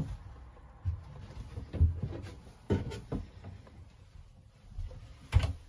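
A wooden cabin door or partition in a boat's shower compartment being handled and pulled closed: a series of separate knocks and thumps, about six over a few seconds, the loudest about two seconds in and again near the end.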